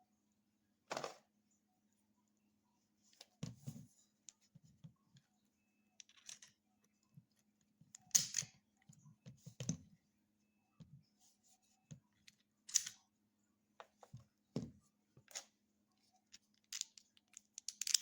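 Irregular small clicks and rustles, about a dozen of them spread unevenly, over a faint steady hum.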